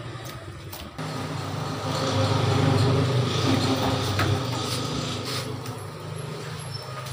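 A steady low mechanical hum that swells louder in the middle, with a short tick about four seconds in.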